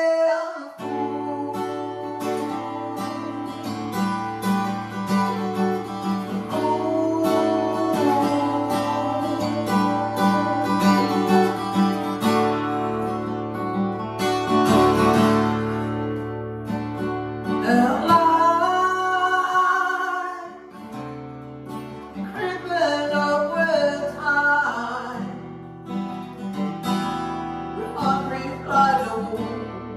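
Acoustic guitar playing a slow song, strummed and picked chords, with a sung melody coming in and out over it.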